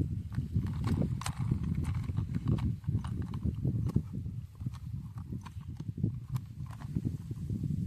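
Irregular light knocks, taps and clicks of a plastic toy train and its packaging being handled, a few per second with no steady rhythm.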